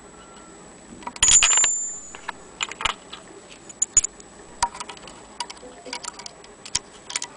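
Small metal parts of an antique Wheeler & Wilson sewing machine clicking and clinking as they are handled and taken out. A louder clink about a second in rings briefly at a high pitch, followed by scattered light clicks.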